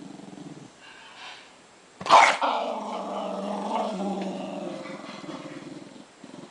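Small dog growling low, then about two seconds in a sudden loud bark that runs into a long, rumbling growl. The dog is guarding the wallet and cash it has taken, warning off a reaching hand.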